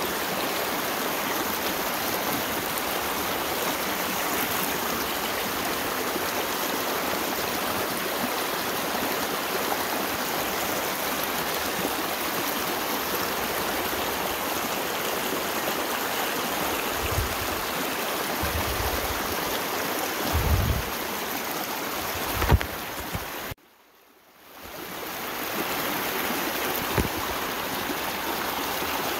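Small mountain creek running steadily over a rocky bed in an even rush. Near the end come a few low thumps, then the sound cuts out suddenly for about a second and fades back in.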